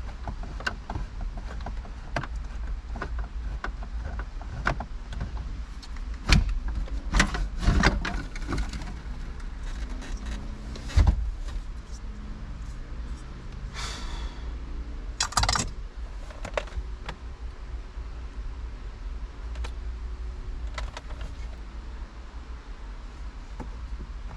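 Hand work on plastic car interior trim: scattered clicks, knocks and rattles of tools and trim pieces, with a brief rustle and a sharp rattle about two-thirds of the way through, over a steady low hum.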